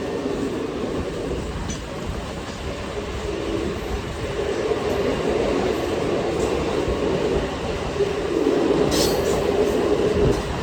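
Train running past, a steady rumble of wheels on the rails with a short metallic clatter about nine seconds in.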